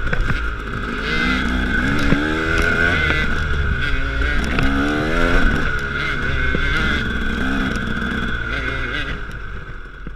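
KTM 300 two-stroke dirt bike engine revving up and down through the throttle as it is ridden along a trail, with scattered clicks, fading near the end.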